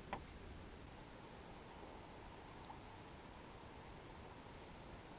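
Near silence: a faint, even background hiss of calm outdoor air, with one faint click just after the start.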